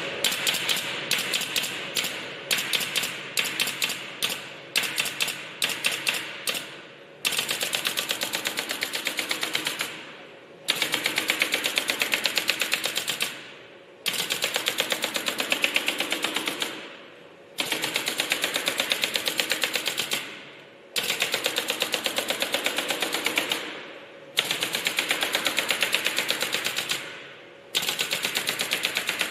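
Robot-mounted industrial stapler firing staples into the wooden slats of acoustic wall panels. At first come single shots and short clusters; from about seven seconds in, it fires in rapid runs about three seconds long, with short pauses between runs.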